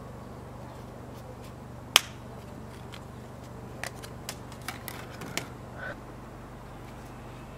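A sharp snap about two seconds in as a nano-SIM is pushed out of its plastic carrier card, followed by a few lighter clicks and rustles of card and paper being handled, over a low steady hum.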